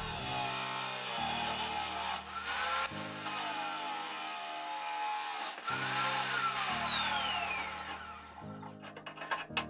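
Abrasive cut-off saw grinding through a steel bar: a loud hiss with a high whine that rises and falls in pitch a few times as the wheel bites into the metal. The cutting fades out about eight seconds in, followed by a few sharp metallic clicks from the saw's vise being worked.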